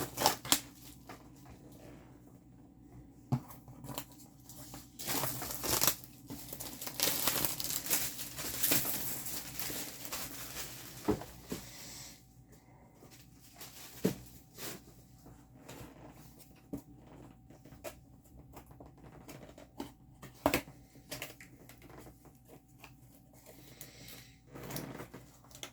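Packaging being torn and crinkled by hand as a parcel is opened, in irregular rustling spells that are busiest about five to ten seconds in, with scattered sharp clicks and taps of handling.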